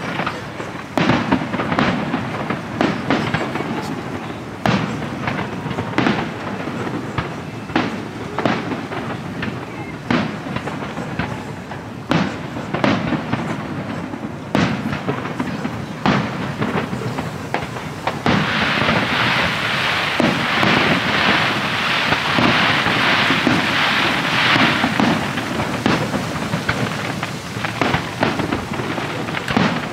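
Aerial firework shells bursting overhead in a steady run of booms and sharp bangs. A little past halfway a dense crackling sets in and lasts several seconds.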